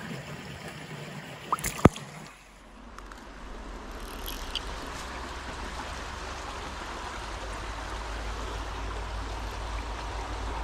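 Creek water running steadily. Two sharp knocks come just under two seconds in, before the flow takes over.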